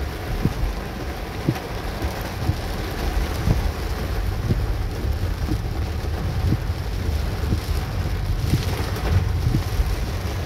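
Heavy rain falling on a car's roof and windscreen, heard from inside the moving car over a steady low road rumble, with a soft low knock about once a second.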